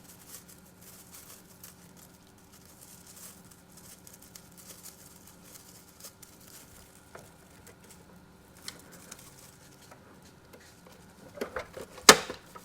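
Faint rustling and light plastic ticks as a thermal transfer ribbon roll is handled and fitted into a label printer, over a faint steady hum. A few knocks near the end, then one sharp click.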